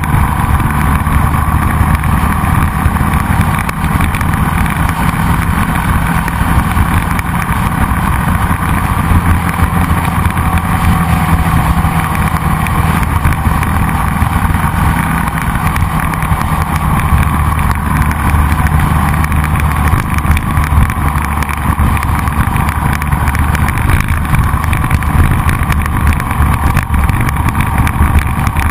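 Motorcycle engine running steadily at highway cruising speed, close to the microphone, with wind and road noise rushing past.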